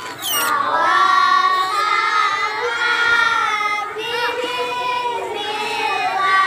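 Children singing, with long held notes.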